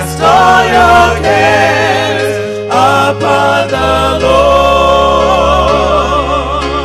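Gospel music: singing voices with vibrato over held bass notes that change every second or two.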